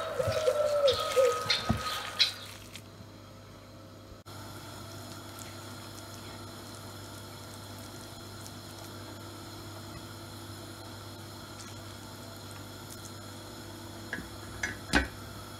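A bird calls over the first two seconds. Then comes a steady faint hiss of oil heating on an iron tawa, with a few light ticks and one louder tap near the end as a raw chapli kebab patty is set on the pan.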